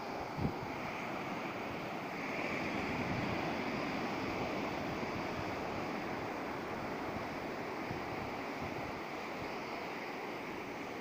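Surf breaking on a sandy beach, a steady wash of waves mixed with wind buffeting the microphone, swelling slightly about two seconds in. A short low thump about half a second in.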